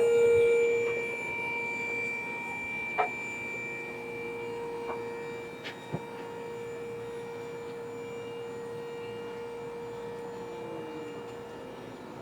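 A steady electrical hum of a few held tones, fading over the first couple of seconds and then holding on, with a few light clicks.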